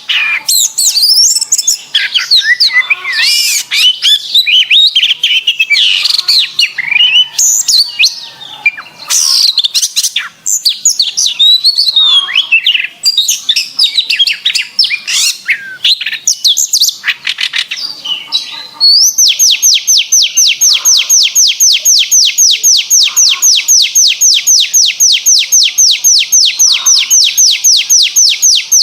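Domestic canary singing: a quick, varied run of chirps and warbled phrases, then from about nineteen seconds in a long, even trill of rapidly repeated notes.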